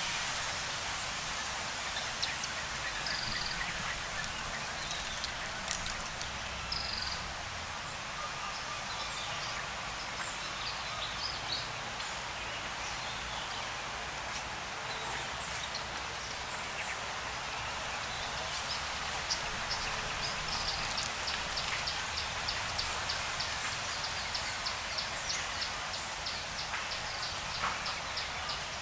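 Forest ambience: a steady hiss with scattered short high bird chirps. About two-thirds of the way in, a rapid, regular high-pitched ticking starts and keeps going.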